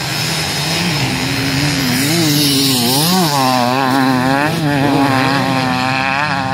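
Enduro motorcycle engine revving hard, its pitch rising and dropping again and again through throttle blips and gear changes. It gets louder over the first couple of seconds and stays loud as the bike passes close.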